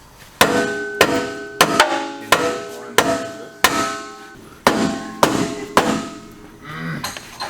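Hammer blows on steel suspension parts, about ten strikes at an uneven pace, each ringing briefly with a metallic tone as a tight-fitting part is driven into line on a Polaris Ranger.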